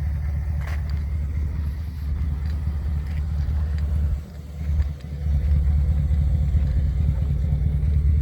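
Muffler-deleted V8 exhaust giving a deep, steady rumble, with a brief dip in level about four seconds in.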